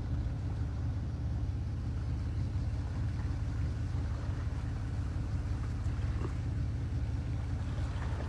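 Steady low rumble of a vehicle driving along a sandy track, its engine and tyres running at an even pace.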